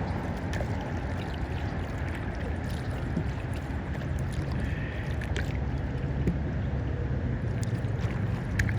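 Water sounds around a kayak being paddled: small splashes and drips from the paddle over a steady wash of water and a low steady hum.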